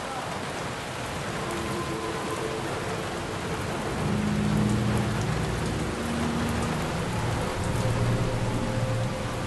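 Steady hiss of heavy rain. Low, held humming tones come in over it about four seconds in.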